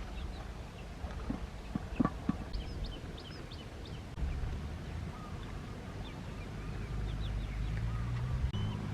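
Young poultry peeping in short high chirps, in two bouts. A few sharp knocks sound about two seconds in, and a low steady hum sets in after about four seconds.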